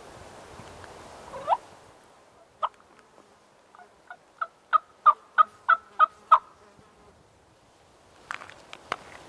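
A series of turkey yelps: two single notes, then a run of about nine yelps at roughly three a second, growing louder. A few faint crunches in dry leaves follow near the end.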